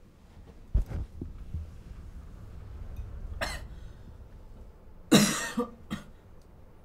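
A person coughing: a short cough midway, then a louder, harsh cough about five seconds in with a smaller one right after it. A dull thump comes about a second in.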